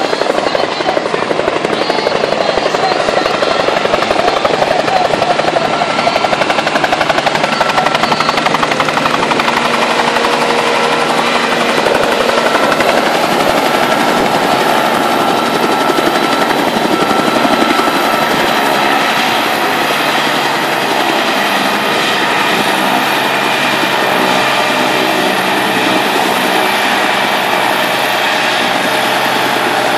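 Bell 47 piston helicopter flying in low and setting down, its rotor chopping steadily over the engine. Once on the ground it keeps running, easing a little quieter about two-thirds of the way through.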